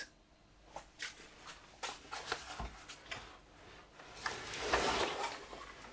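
Footsteps and a few light knocks, then a longer rustling and scraping about four seconds in as backpacks are handled and pulled off a wooden shelf.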